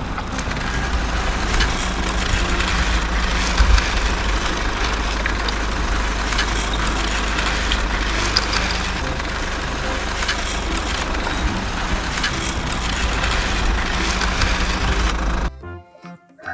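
Cement mixer truck running, a steady deep engine rumble with rattling on top, cutting off suddenly near the end.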